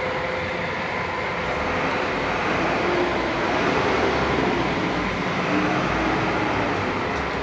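Steady road traffic noise: a continuous rumble and hiss with faint engine tones.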